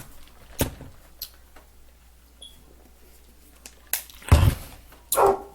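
Scattered sharp clicks and knocks, with one loud thump a little past four seconds in and a short pitched sound just after it.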